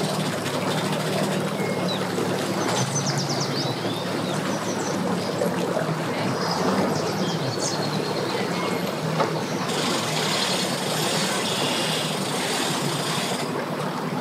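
A 250 hp outboard motor running steadily at low speed as a boat is powered onto its trailer, with propeller water churning. About ten seconds in, a hiss comes in for some three seconds.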